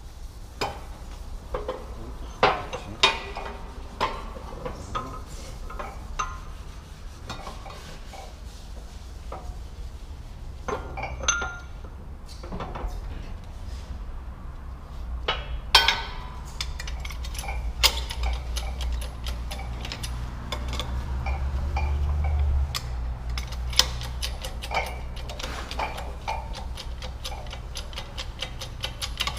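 Metal tools and parts clinking and knocking together, in irregular strikes over a steady low hum. In the last few seconds comes a quick run of rapid ticks.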